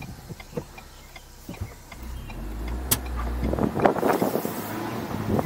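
2021 Ford Bronco with its 2.3-litre turbocharged four-cylinder, driving with the top off. The engine runs low and quiet, then the engine and road noise get louder from about three and a half seconds in, with a sharp click near the middle.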